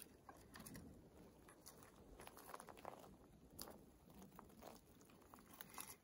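Near silence, with faint scattered crackles and rustles of dry twigs and pine needles on the forest floor being disturbed.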